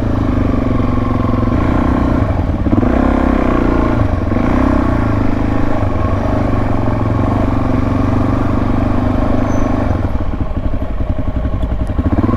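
Motorcycle engine running at low road speed, its pitch shifting slightly as the bike rolls along.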